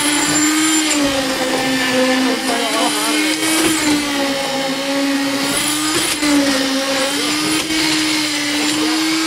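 Concrete needle vibrator running with a steady high motor whine that dips slightly in pitch now and then as its poker works in freshly poured roof-slab concrete.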